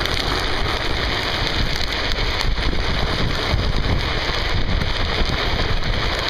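Heavy wind buffeting the microphone over the steady rolling rumble of drift trike wheels on asphalt during a downhill run.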